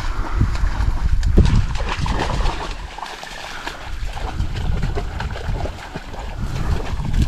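A hunting dog splashing and rustling through wet cover while it searches for a downed bird, with wind rumbling on the microphone.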